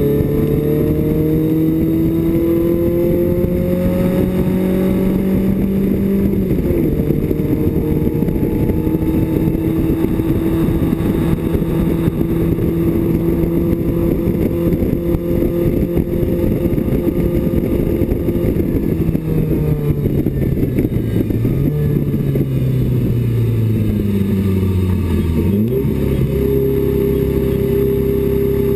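BMW 2002 race car's four-cylinder engine heard from inside the cabin, pulling under load: the pitch climbs slowly, drops abruptly about six seconds in as it shifts up, then holds steady. Later the pitch falls for several seconds as the car slows, and near the end it jumps back up sharply as the engine picks up again.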